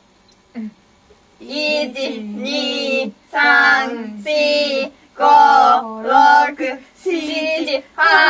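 A voice singing a run of long, drawn-out notes, starting about a second and a half in.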